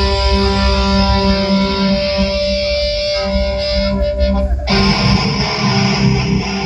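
Loud rock music with distorted electric guitar over a heavy low beat; it swells back to full about four and a half seconds in and cuts off abruptly at the very end.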